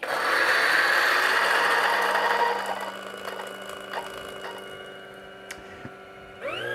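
Option-O Lagom P100 98 mm flat-burr coffee grinder grinding a dose of beans at a filter setting: a loud, gritty grinding for about two and a half seconds, then the motor running on much more quietly as the beans run out, with a faint click or two. Music comes in near the end.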